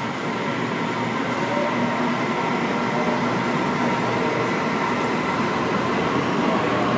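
Sydney Trains Waratah (A set) double-deck electric train, set A62, moving along an underground station platform. Steady running noise with a few steady whining tones from the train.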